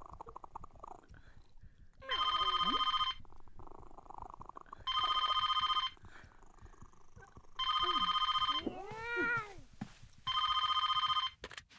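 A telephone ringing four times, each warbling ring about a second long and about two and a half seconds apart. Between the rings there is a soft low rumble, and after the third ring there is a short gliding vocal call that rises and falls in pitch.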